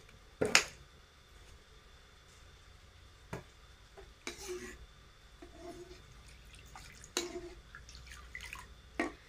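Metal ladle stirring and scooping thin coconut milk in a stainless-steel pot: a few sharp clinks of ladle against pot, the loudest about half a second in, with drips and small splashes of liquid between.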